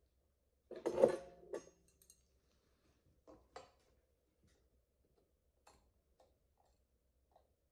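Metal dental hand instruments clattering as they are picked up and handled, loudest about a second in with a brief metallic ring, then a few light clicks and taps.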